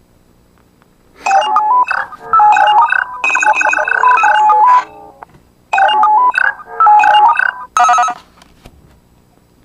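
Electronic jingle and stepped beeping tones from the Power Rangers Megaforce card-scanning app, played through a smartphone's small speaker as it reads a trading card. The tones come in two bursts, the first of about four seconds and a shorter one about six seconds in.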